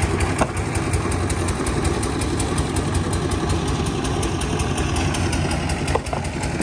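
An engine running steadily at idle, with an even chugging pulse of about six beats a second.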